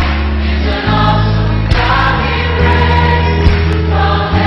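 A choir singing a slow church-style piece in held chords, the chord changing every second or so.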